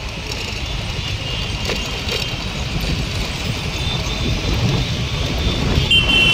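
Steady low rumble of wind and road noise while moving along a highway, slowly getting louder. A faint high steady tone comes in near the end.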